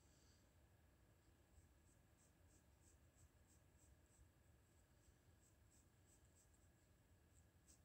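Faint pencil sketching on paper: short, irregular strokes, a few a second, over a steady faint hum.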